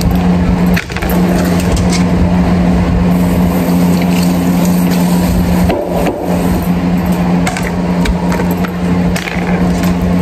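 A loud, steady mechanical hum with a constant low tone and a rushing noise, like a running fan or motor, dipping briefly about a second in and again near the middle. Faint knife clicks against a plastic cutting board sound here and there as hot dogs are sliced.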